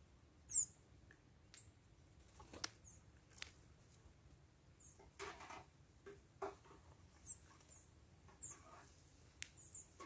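Small birds at a feeder giving several short, high chirps, the loudest about half a second in, with scattered sharp taps and brief rustles between them.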